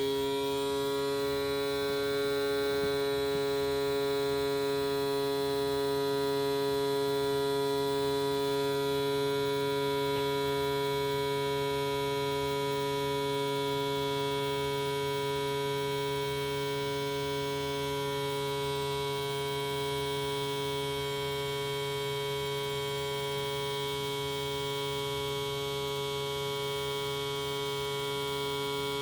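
Homemade siren sounding its alert signal: one steady, unwavering tone with many overtones, held at full pitch.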